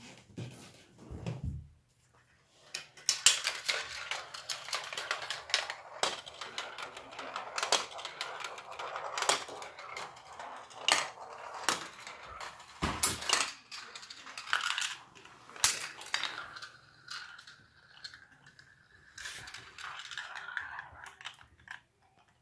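Glass marbles running through a GraviTrax plastic marble run: a continuous rattle of rolling on the track with many sharp clacks as marbles drop and knock against the pieces and each other. A dull thump comes about a second in, and the last few seconds settle into a steadier rolling sound that dies away as the marbles come to rest.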